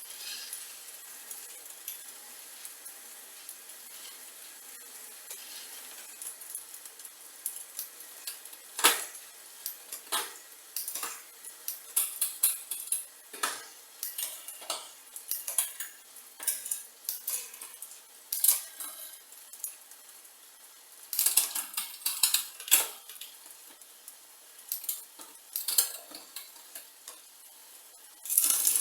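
Hand tools and small metal bicycle parts clinking, tapping and rattling in irregular clusters of sharp clicks, starting about eight seconds in, with the busiest stretches near the middle and at the end.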